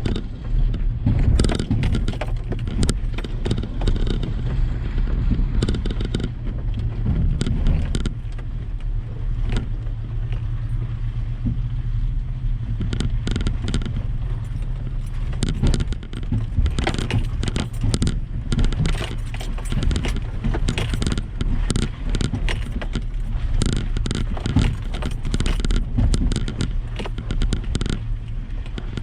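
Truck engine running low and steady while crawling over a rough off-road trail, with frequent sharp rattles and knocks throughout.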